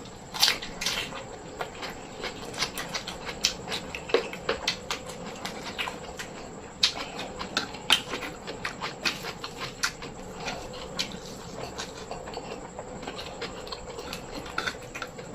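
Close-miked eating: chewing and lip smacking, with many irregular sharp clicks several times a second.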